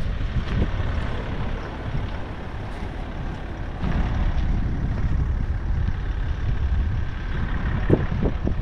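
Outdoor rumble of wind buffeting the microphone mixed with steady traffic noise from a nearby freeway, growing a little louder about halfway through.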